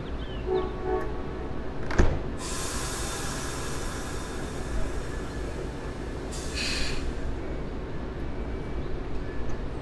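Amtrak Midwest passenger train standing at a station platform: a steady low rumble, a sharp clank about two seconds in, and straight after it a hiss that lasts about four seconds, with a second short, brighter hiss near the seven-second mark.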